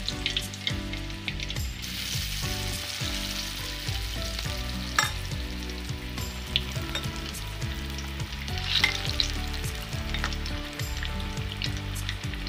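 Batter-coated egg pakodas deep-frying in hot oil: a steady sizzle with scattered pops and crackles, sharpest about five seconds in and again near nine seconds.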